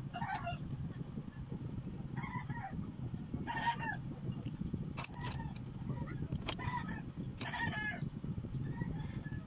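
Chickens clucking, with short high-pitched calls coming every second or so, over a steady low rumble.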